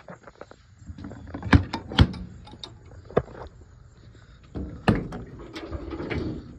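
Knocks, clicks and clatter of rummaging through the side compartment of a work truck, with loud bangs about a second and a half in, at two seconds, and near five seconds.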